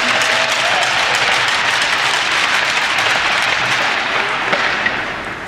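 Crowd applauding a player's introduction, tapering off near the end.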